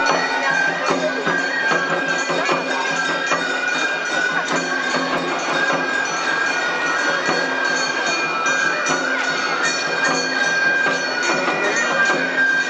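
Festival float music (Otsu-bayashi): bamboo flutes holding high notes over rapid, steady strikes of small metal gongs, with crowd chatter underneath.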